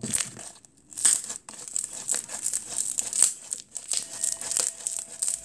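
Inflated jelly slime being squished and stretched by hand to deflate it: quick, irregular crackles and pops of trapped air, a sizzly sound. After a short pause it resumes about a second in.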